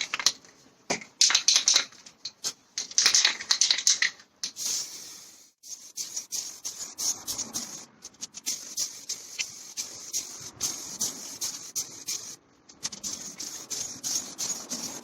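Aerosol can of primer: short bursts of clatter, as of the mixing ball rattling in a shaken can, then long steady hissing passes of spray, with small clicks through them and a brief break between passes.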